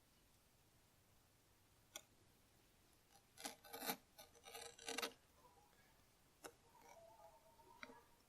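Razor blade scraping an old, brittle sticker off car window glass: a cluster of short, faint scratchy scrapes about three to five seconds in, with a few small ticks around them.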